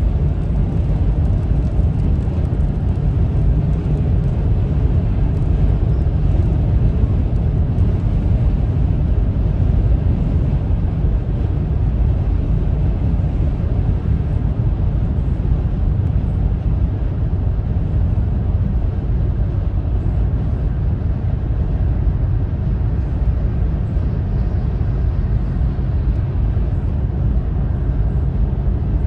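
Steady low rumble of a car's tyres and engine heard from inside the cabin while cruising at motorway speed.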